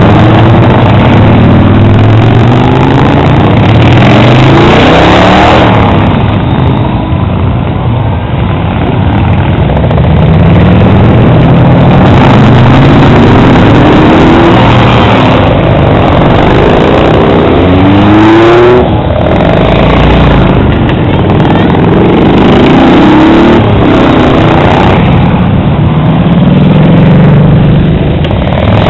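Parade of cruiser and touring motorcycles riding past one after another, engines loud and accelerating, with the pitch rising several times as each bike pulls away.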